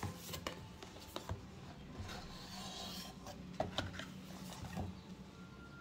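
Cardboard box insert scraping and rubbing against the box as it is worked loose and lifted out, with scattered light knocks and a longer rustle about two to three seconds in.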